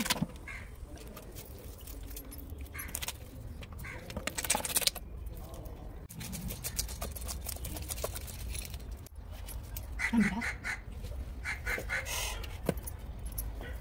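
Knife scraping the scales off a snakehead (viral) fish, in repeated rasping strokes that come in short bursts.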